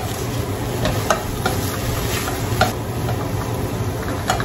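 A wooden spoon stirs okra and other vegetables in a stainless steel sauté pan, with scattered scrapes and taps of the spoon against the pan over a steady light sizzle of the olive oil on the gas burner.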